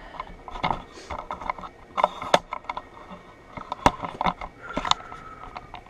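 Irregular light clicks, taps and rustles of handling noise, with no steady machine sound standing out.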